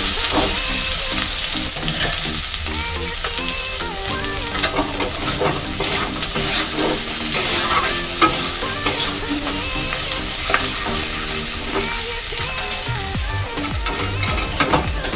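Dried fish, onions and spice masala frying in oil in a kadai, sizzling steadily, while a metal spatula scrapes and clicks against the pan as the mixture is stirred and turned.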